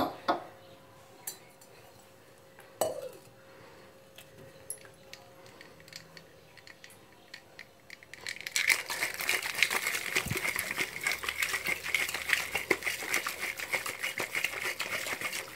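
Ice cubes rattling hard inside a glass capped with a steel tumbler as the kulukki sarbath is shaken by hand: a fast, continuous clatter of ice against glass and steel that starts about eight seconds in, after a few light clinks.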